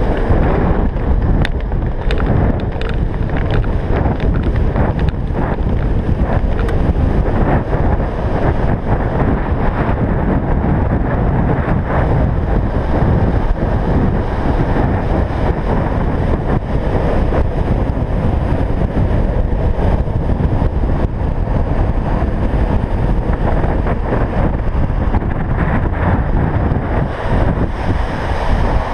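Wind rushing hard over a camera microphone on a downhill longboarder at speed, mixed with the steady rumble of the board's wheels rolling on asphalt. A few sharp clicks in the first few seconds as the riders push off.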